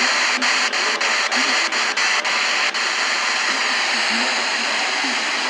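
FM radio static: a loud steady hiss from a weak or detuned station, with faint speech buried under it. Sharp clicks tick about four times a second through the first half, then stop.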